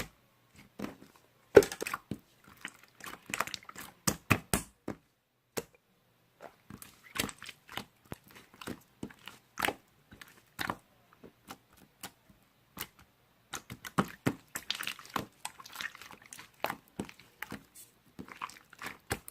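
Irregular short clicks and crunches close to the microphone, like something being chewed.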